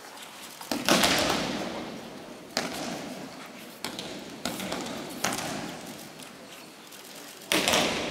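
Aikido breakfalls: the thrown partner hitting the tatami mat, heard as a series of about six sudden thuds and slaps that ring on in a large hall. The loudest come about a second in and near the end.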